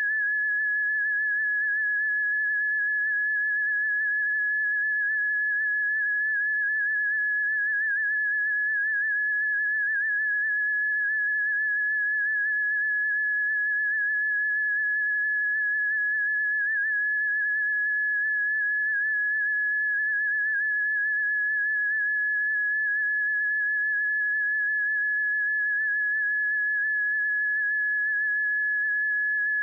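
Electronic early-warning tone from a seismic monitoring stream: a single steady high pitch with a slight flutter, holding unchanged. This is the alarm's resting tone; it changes when an earthquake or eruption is detected.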